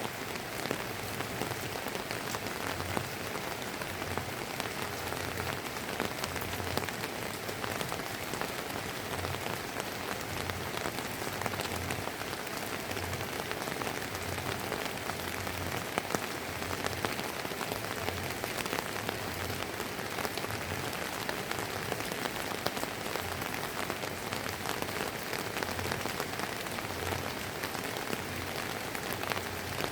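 Steady drizzling rain falling and pattering on surfaces, an even hiss thick with the ticks of individual drops.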